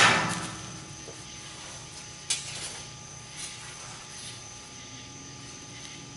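Steady low machinery hum in the shop, with one sharp metallic click about two seconds in and a few faint knocks as a steel baffle piece is handled.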